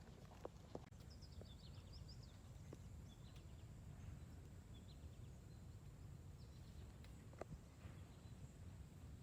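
Quiet outdoor ambience: a bird chirps in a quick run of short high notes between about one and three seconds in, with a few single chirps later, over steady low background noise and a few soft taps.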